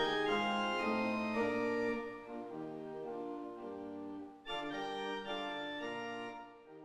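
Organ playing slow sustained chords. The sound dips sharply about four and a half seconds in, a fresh chord comes in, and it fades away near the end.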